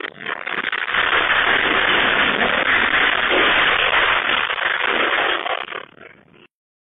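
Shop fittings and contents rattling and clattering in a dense crackle as an earthquake shakes the building, heard through a security camera's microphone. The noise swells about a second in, then fades and cuts off shortly before the end.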